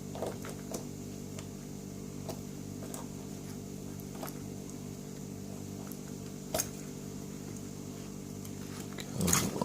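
Faint scattered clicks of small metal lock parts being worked on, with a sharper click about six and a half seconds in and a louder clatter near the end, over a steady low electrical hum.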